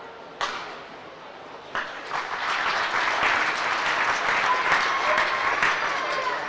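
A sharp racket hit on a shuttlecock, then the crowd applauding and cheering, swelling about two seconds in and holding to near the end as the point is won.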